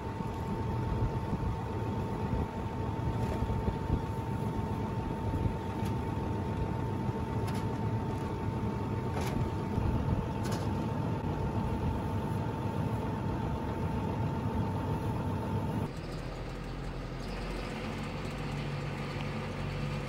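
Wind buffeting the microphone over an idling engine, with a few sharp knocks as wooden pallets are dropped onto the end of a plastic grain bag. About 16 seconds in it cuts to a quieter, steady engine hum from inside a tractor cab.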